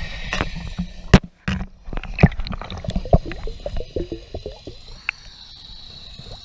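Water sloshing and gurgling around a camera moving under and through the surface, with bubbly pops and a scatter of sharp clicks and knocks, the loudest about a second in. It eases off near the end as the camera comes out of the water.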